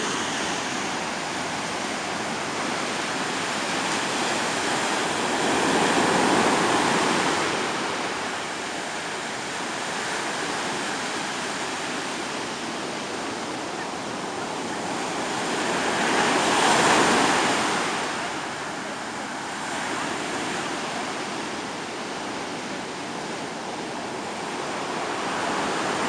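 Rough sea surf breaking on a sand beach in a storm: a continuous rush of water that swells louder as waves break, about six seconds in and again at about seventeen seconds, then eases back.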